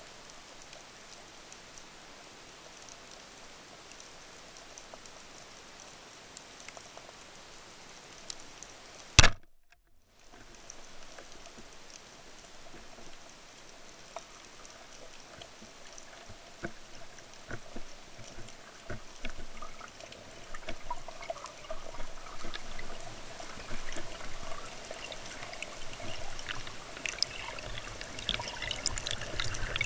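Underwater water noise recorded on a freediver's camera: a steady hiss with faint crackling, one loud sharp click about nine seconds in followed by a brief dropout, then crackling and sloshing that grows busier and louder toward the end.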